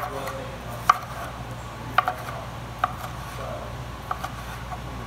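Kitchen knife knocking on a cutting board as tomatoes are diced: a few sharp, separate knocks about a second apart, with two close together near the end.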